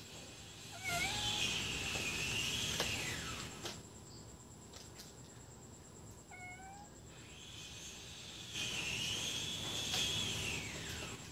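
Cat meowing: two long, drawn-out meows, one about a second in and another about eight and a half seconds in, each lasting around two seconds.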